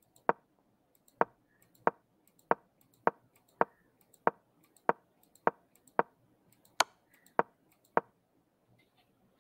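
Computer mouse button clicked over and over, about thirteen sharp single clicks at a steady pace of a little under two a second, stepping a chess game forward move by move; the clicks stop shortly before the end.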